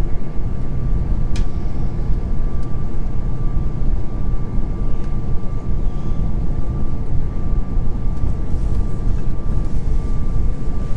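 Airbus A350 cabin noise in flight: a steady low rushing roar of engines and airflow, with a thin steady high tone held throughout and a few faint clicks.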